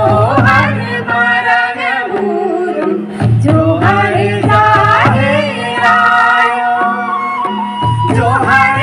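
Folk-style song sung over a loudspeaker system, the voice line bending and sliding, with drum strokes and a low sustained bass tone that drops out briefly twice.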